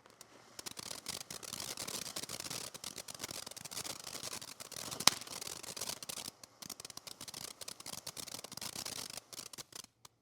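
Firework fountain crackling: a dense, rapid run of crackles over a steady hiss, with one much louder pop about five seconds in, stopping suddenly near the end.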